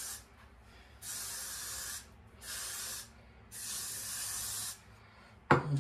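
Got2b Glued aerosol hair spray hissing out of the can onto the hair in short bursts: the tail of one burst, then three more of about a second, half a second and a second. A brief vocal sound comes right at the end.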